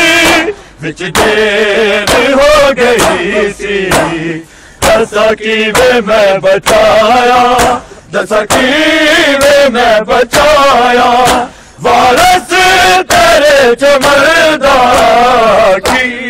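Men's voices chanting a Punjabi noha (Muharram lament) together, with the sharp slaps of matam, open hands striking bare chests, in a quick steady beat. The chant breaks off briefly a few times.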